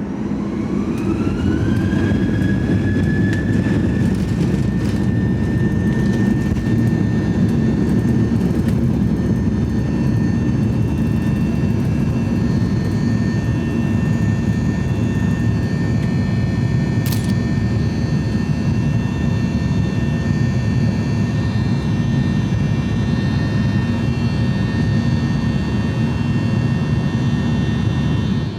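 Boeing 737-800's CFM56 jet engines spooling up to takeoff power, heard from inside the cabin: a whine rises over about two seconds and then holds steady above a loud, even rumble.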